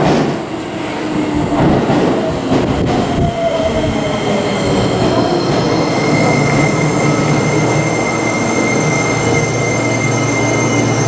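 Seibu 20000 series electric train pulling into the platform. Wheels knock over rail joints for the first few seconds, then a falling motor whine as it brakes, and a steady high-pitched brake squeal until it stops.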